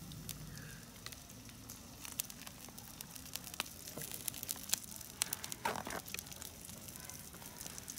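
Faint sizzling of meat frying on a griddle, with many small scattered crackles and pops.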